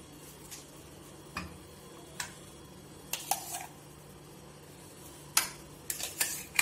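Scattered sharp clicks and taps of a utensil knocking against a steel mixer jar and glass containers as thick green chutney is scooped out and portioned; the loudest taps come in a cluster near the end.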